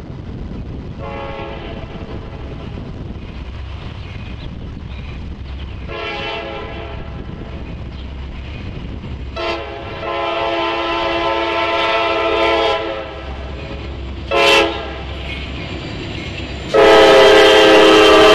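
A locomotive's Nathan K5LA five-chime air horn blows a series of blasts as the train approaches a grade crossing, growing louder overall. There are longer blasts about a second in, about six seconds in and about nine seconds in, a brief short blast a little later, and then the loudest long blast starting near the end.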